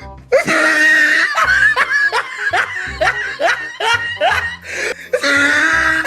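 Laughter: a quick run of short ha-ha pulses, with music underneath.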